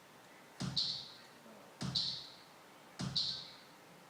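Sampled bass drum from a music app playing in a loop, three hits about 1.2 seconds apart, each followed closely by a short higher-pitched hit.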